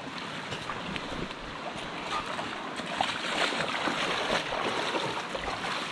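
Running water of a rocky hill stream, a steady rush.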